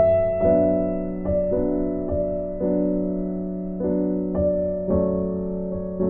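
Slow, gentle piano music: single notes struck every half second or so, each ringing on, over a held low note.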